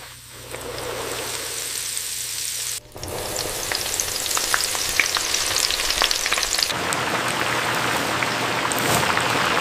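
Battered chicken nuggets deep-frying in hot oil: a steady sizzling hiss with many small pops and crackles. The sound changes abruptly twice, about 3 s in and again near 7 s.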